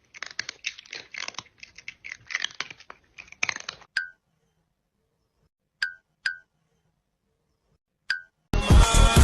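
Crunching chews, irregular and crackly, for about four seconds, like a cat chewing dry food. Then four brief high ticks, and music comes in near the end.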